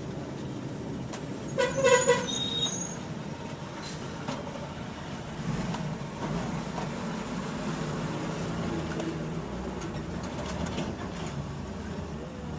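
Road traffic noise, with a short vehicle horn honk about two seconds in.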